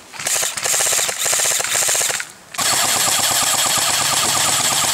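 Airsoft rifles firing on full auto: a rapid burst lasting about two seconds, a short break, then a longer stream of fast shots.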